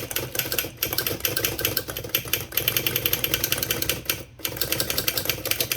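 Smith Premier No. 10 typewriter's mechanism clattering in a fast, even run of clicks, about ten a second, with a brief pause about four seconds in.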